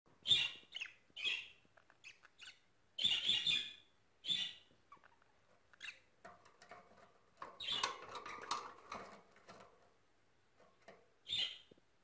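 Budgerigars chirping in short, separate high calls every second or so, with a longer run of chatter about eight seconds in.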